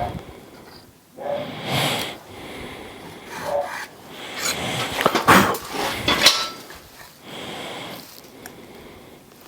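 Rough rubbing and scraping strokes of a tool on steel plate, about six of them, with a few sharp clicks and taps near the middle, as the plate's centre is marked out.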